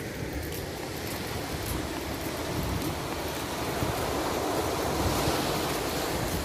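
Steady rush of surf and wind, with gusts buffeting the microphone. The rush swells about four seconds in, then eases slightly near the end.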